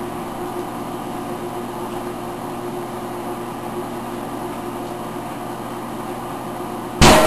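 Microwave oven running with a steady hum, then about seven seconds in a sudden loud bang as the microwave explodes.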